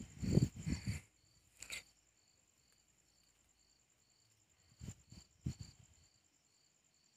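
Insects chirping, a steady repeating pulse about twice a second over a continuous high drone. A burst of dull thumps and rustling comes in the first second, and two shorter thumps come about five seconds in.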